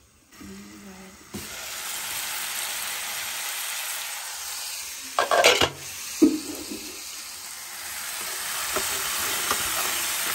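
Broccoli, mushrooms and peppers sizzling in a frying pan and being stirred with a spatula. The steady sizzle starts abruptly about a second and a half in. A loud clatter comes a little past halfway, and light scrapes and taps from the spatula follow.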